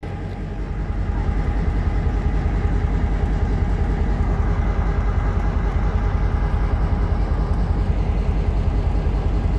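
Pakistan Railways diesel locomotive engine running steadily at the platform, a continuous deep rumble with a fast, even throb.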